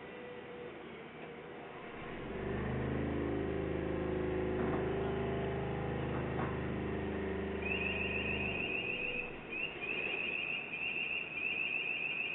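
Diesel engine of a piling rig revving up about two seconds in and running steadily under load, with a couple of knocks, then easing off near the end. From about two thirds of the way in, a rapid, evenly repeating high-pitched chirping warning alarm sounds over it.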